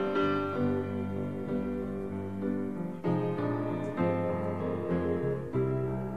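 Piano playing the slow instrumental intro of a rock ballad, with held chords struck afresh about three seconds in and again near four and five and a half seconds.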